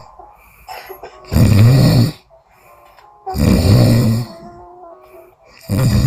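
A sleeping woman snoring loudly, three snores about two seconds apart, each a low, coarse inhalation, the last cut short near the end. The uploader presents it as sleep-apnea snoring.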